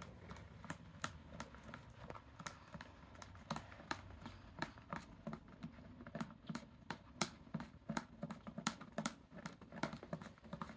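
Wooden popsicle stick stirring clear glue and water in a thin plastic tub: faint, irregular clicks and taps of the stick against the plastic, several a second.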